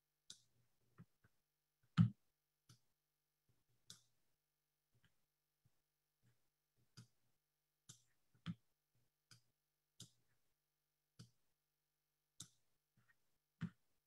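Faint, irregular clicks and light knocks, about a dozen spread out unevenly, with one louder knock about two seconds in.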